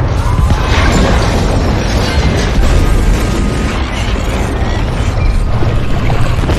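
Loud, dense dramatic music with a heavy booming bass.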